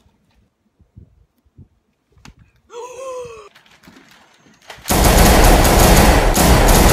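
Loud burst of rapid automatic gunfire, dense and continuous for about three seconds, starting about five seconds in. It is preceded by a short cry that bends up and down and a few faint clicks.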